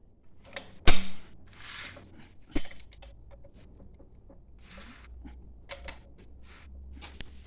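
Metal tools and engine parts being handled: a sharp metallic clank with a short ring about a second in, a second knock about a second and a half later, then light clinks and short scraping sounds.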